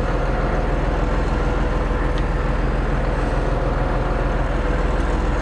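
Tractor engine idling steadily, with a single faint click about two seconds in.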